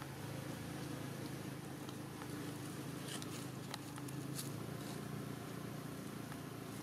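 Outdoor background with a steady low hum and a few faint clicks or rustles about three to four seconds in.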